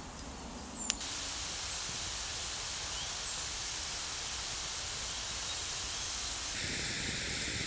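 Campfire of damp split logs hissing steadily, with a single click about a second in. Faint bird chirps in the background.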